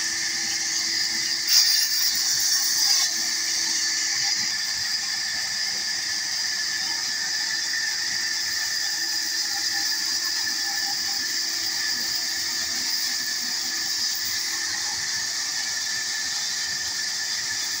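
Large vertical band saw running with a steady high whine as it rips a wooden plank, with a louder stretch about a second and a half in.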